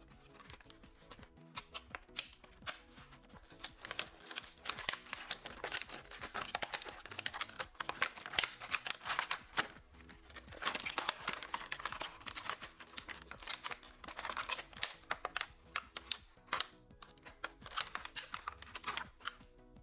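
Toy packaging being handled and opened, with crinkling and tearing and many small clicks and taps, over soft background music.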